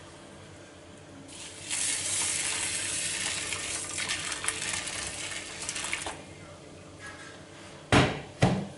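Hot water poured in a steady splashing stream from an enamel kettle onto bulgur in a stainless-steel bowl, for about four seconds. Two sharp knocks follow near the end.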